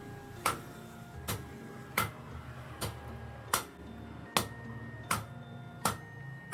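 Blacksmith's hand hammer striking a steel sickle blade on an anvil at a steady pace, about one blow every three-quarters of a second, each blow leaving a metallic ring.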